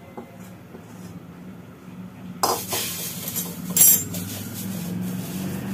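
Metal spatula scraping and clanking against a steel kadhai and plate as the cooked Mysore pak is emptied out. The clatter starts about halfway through, with the loudest clank near four seconds in.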